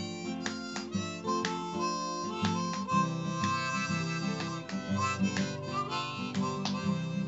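Background music: a harmonica tune over plucked acoustic guitar, with held harmonica notes in the second half.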